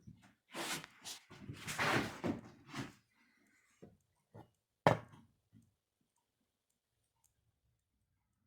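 Workshop handling sounds on a workbench: a couple of seconds of scraping and rustling, then one sharp knock about halfway through, followed by a few light taps.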